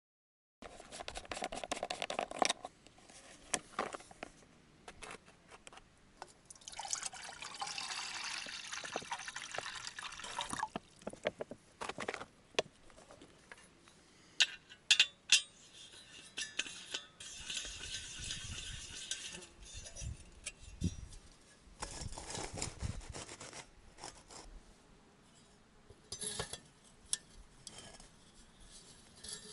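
Camp cooking gear being handled: water poured into a pot for a few seconds, with scattered clinks and knocks of the metal pot and lid.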